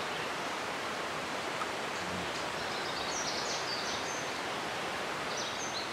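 Steady rush of a flowing mountain creek, with a few faint high bird chirps about halfway through and again near the end.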